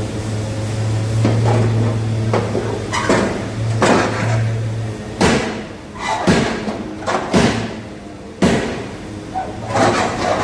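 A steady low machine hum that stops about five seconds in, then four loud, sharp knocks about a second apart, with the hum coming back near the end. Smaller knocks come in the first half.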